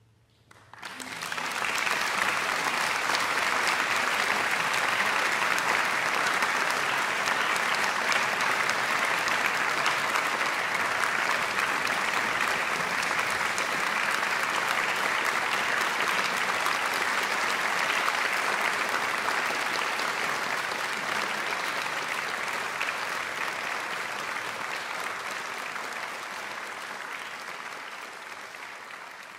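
Audience applause that starts suddenly about a second in after silence, holds as dense, steady clapping, and fades out near the end.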